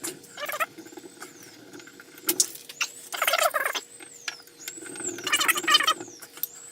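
Threaded metal feed-handle arms of a pillar drill being screwed by hand into the hub, squeaking and grating in three loud bursts with repeated high squeaks in between.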